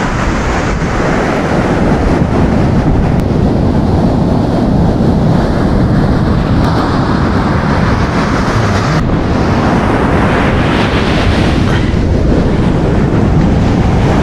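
Ocean surf breaking and washing up the sand, with wind noise on the microphone.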